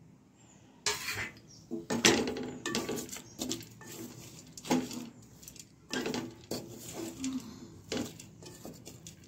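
Kitchen dishes and cutlery clinking and knocking together in irregular strokes, some close together and some a second or more apart.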